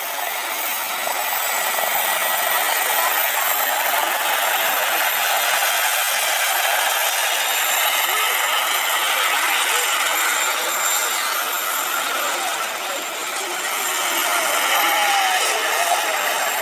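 Turbine-powered large-scale RC model helicopter running, a steady whining, rushing engine and rotor noise with thin high tones, swelling slightly near the end.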